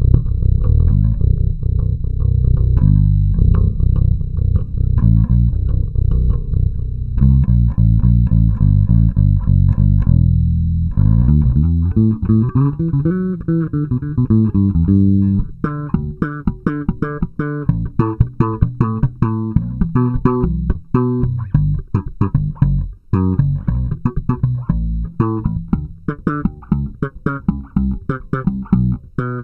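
Baracuda Axcess five-string electric bass played fingerstyle with both pickups, both volumes and both tones turned full up. It opens with a run of low, dark notes; about eleven seconds in the lines turn brighter with notes sliding up and down, and from about halfway it becomes a fast passage of sharply plucked, percussive notes.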